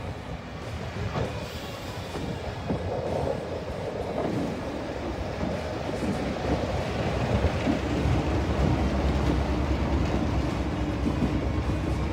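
A train running on the rails, heard from on board: a low rumble with scattered wheel clicks. It grows louder over the first several seconds as it gathers speed.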